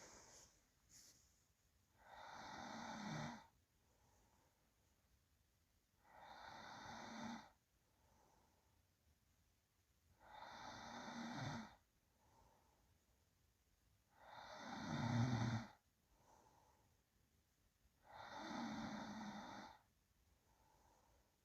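A sleeping person breathing slowly with low snoring: five snoring breaths about four seconds apart, with a softer breath between each, the fourth the loudest.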